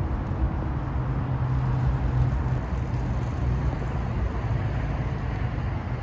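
Steady low rumble with a faint droning hum underneath, outdoor background noise with no single event standing out.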